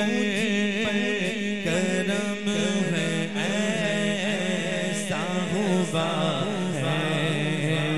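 Men singing an Urdu manqabat, a devotional song, through microphones in a chanting style, over a steady low drone.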